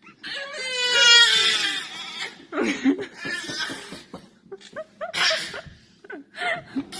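A young child crying: a long wail falling in pitch, then several shorter sobbing cries.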